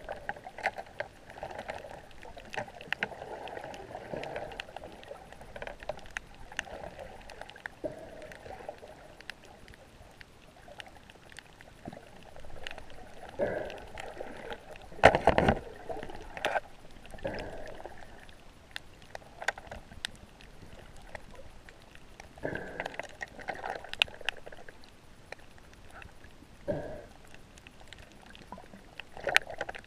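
Water sloshing and lapping against a camera's waterproof housing held at the surface, muffled, with scattered knocks and one loud thump about halfway.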